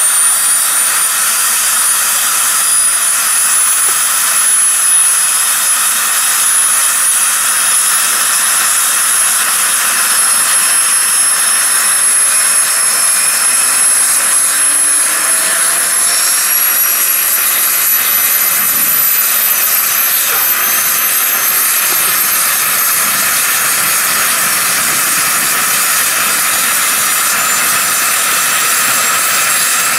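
Model gas-turbine engine of a large radio-controlled Bell 412 helicopter running with a loud hissing whine. Its high pitch climbs slowly as the main rotor spools up from slow turning to full speed.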